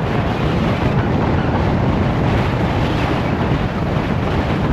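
Steady wind noise buffeting the microphone, heaviest in the low end, as from moving along at speed.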